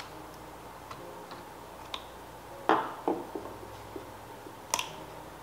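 Scattered small clicks and taps of a screwdriver tip and fingertips on the plastic and metal parts inside an open Dell Latitude 5500 laptop, working loose the battery's cable connector. A few sharper clicks come about halfway through and near the end.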